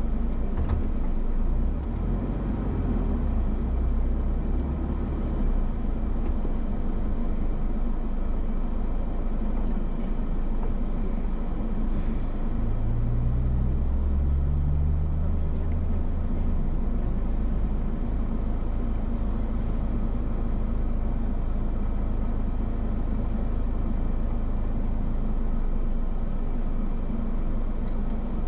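A motor vehicle's engine running steadily with road rumble, its engine note shifting in pitch about halfway through.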